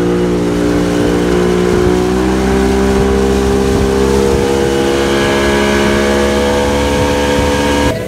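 Motorboat engine running steadily under way, its pitch rising slightly about two seconds in.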